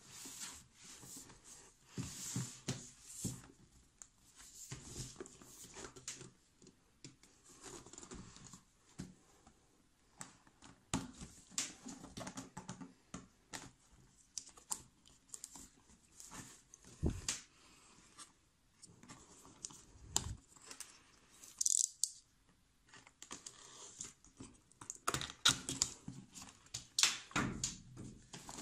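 Large cardboard box being handled and opened by hand: irregular rubbing, scraping and tapping of cardboard, with a few dull thumps past the middle and a short hissing slide of cardboard soon after.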